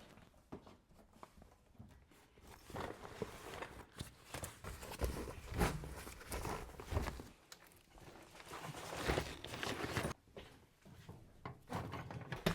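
Irregular soft thumps and rustling handling noises, unevenly spaced, with no music or speech.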